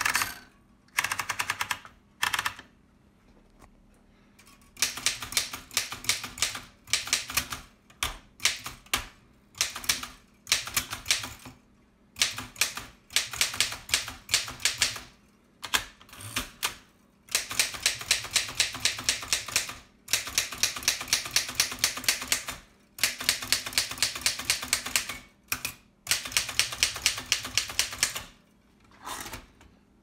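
Densmore No. 4 upstrike typewriter being typed on: runs of sharp key strikes at about five a second, broken by short pauses.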